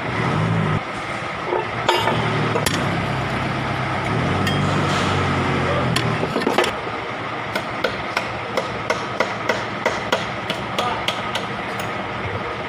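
Hammer blows in tractor axle repair work: a few separate knocks, then an even run of about a dozen light strikes, roughly three a second, in the second half, over a steady hum.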